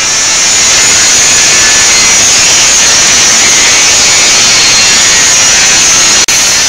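Angle grinder with a cutting disc slicing through sheet steel: a loud, steady, high-pitched grinding hiss that drops out for an instant near the end.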